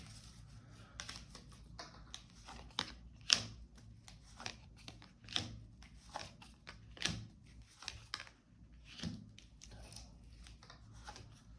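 Tarot cards being handled, drawn from the deck and laid down on a table: a string of irregular short flicks and taps.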